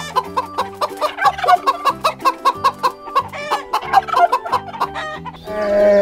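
Rooster clucking in short, rapid, repeated calls over background music with a steady beat. Near the end a long, steady, held animal call begins.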